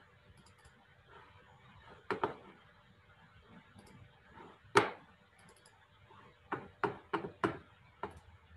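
Sharp clicks and knocks over a faint room hiss. Two come close together about two seconds in, a louder single one just before five seconds, and a quick run of four or five near the end.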